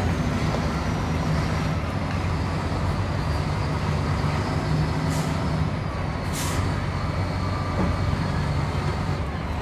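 Heavy-equipment diesel engine running steadily under load as it pushes a dead excavator, with two short hisses about midway.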